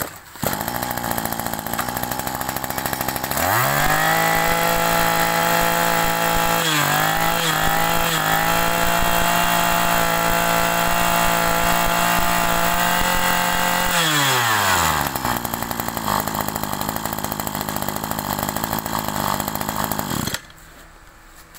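Maru 20 brush cutter's 20cc two-stroke engine starts and idles, is revved to full throttle for about ten seconds with a few quick throttle dips, drops back to idle, and is shut off near the end.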